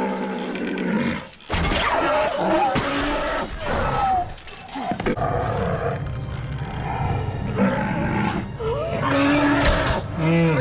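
Film battle sound: orcs roaring and shrieking, with sharp hits. The sound drops out suddenly a couple of times where shots are cut together.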